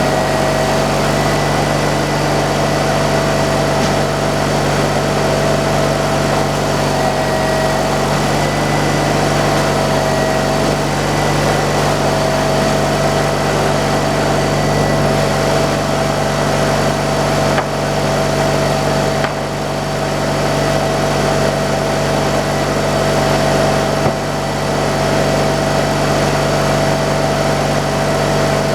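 Sawmill engine running steadily under power, with a constant whine over a low hum that wavers briefly a few times.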